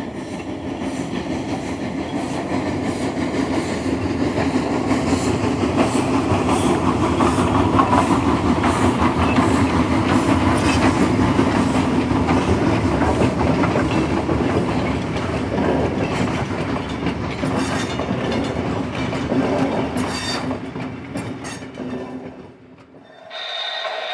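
Lionel Hiawatha O-gauge model train running on three-rail track, its wheels rumbling and clicking along the rails. The sound builds over the first several seconds, holds steady, and fades out about two seconds before the end.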